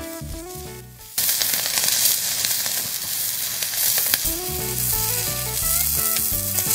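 Beef rump-cap steak sizzling on a small hot iron griddle, the sizzle starting suddenly and loudly about a second in and running on as a steady hiss. Light background music plays underneath.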